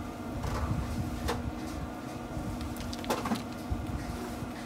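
Light clicks and taps of meat skewers being set down on a pellet grill's metal grate, a few times, over the steady hum of the running grill's fan.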